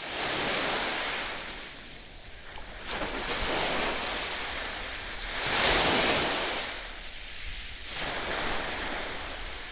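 Small sea waves washing in at the shore: the water noise swells and falls back every two to three seconds, with the loudest surge about six seconds in.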